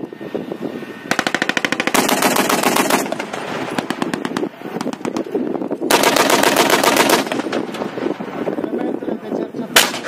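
Machine-gun fire from armoured vehicles in bursts of rapid shots: one long burst about a second in, another about six seconds in, and a single sharp report near the end.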